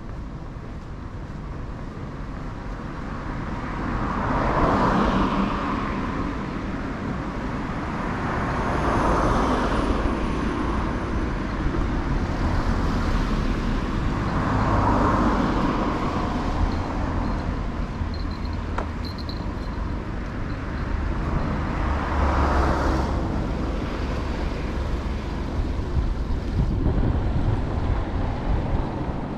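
Road traffic: cars passing one after another, about four swells of tyre and engine noise that build and fade, over a steady low rumble.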